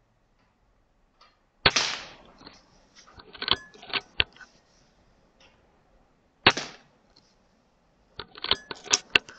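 Two shots from a Weihrauch HW100KT .22 sub-12 ft/lb pre-charged air rifle, each a sharp crack, about five seconds apart. Each shot is followed by a quick run of smaller clicks and knocks.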